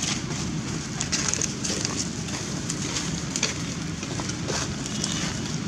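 Dry fallen leaves crackling and rustling as monkeys move on them: a handful of short, sharp crackles at irregular moments over a steady low rumble.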